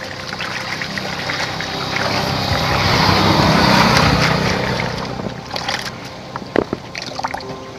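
Water splashing and sloshing in a plastic basin as handfuls of leafy greens are swished and rubbed clean by hand, building to its loudest a few seconds in, then easing off to a few small splashes and drips near the end.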